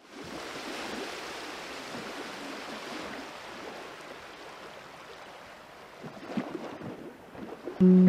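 Sea surf washing onto a sandy beach, a steady hiss that slowly eases off, with a few low thumps near the end. Guitar music comes in just before the end.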